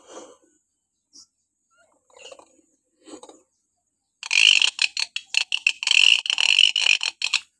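Hill myna giving a loud harsh, rasping screech of rapid pulses for about three seconds, starting about four seconds in, after a few faint soft sounds.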